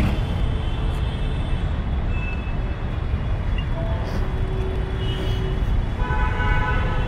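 Wind and road noise rushing over a phone microphone while riding along a road: a steady, heavy low rumble. A few brief pitched tones come through, one held for about a second midway and a cluster of several tones near the end.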